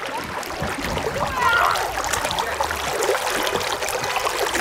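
River water rushing and splashing over shallow rocks, with kayak paddle strokes splashing in it. A short high-pitched squeal about a second and a half in.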